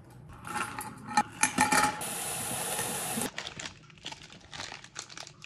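Clinks and clanks of a stainless-steel water bottle and its metal lid being handled on a stone countertop, with a short ringing tone, in the first two seconds. A steady hiss follows for just over a second, then light ticks and rustles as packaged snack bars are picked out of a bin.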